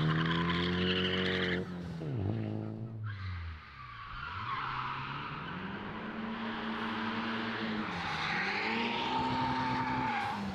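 Drift cars sliding through corners: an engine held high with tyres squealing, then dropping off about two seconds in. After that, tyres squeal continuously while a car's engine note rises and falls twice as it drifts back toward the listener.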